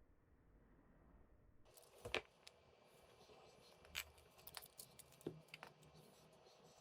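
Faint scattered clicks and light knocks, about five in a few seconds, over a low hiss that comes in about a second and a half in.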